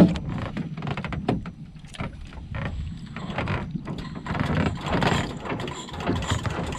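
Irregular knocks and clatter of gear being handled inside a small outrigger boat's hull, over a low steady rumble. The sharpest knock comes right at the start.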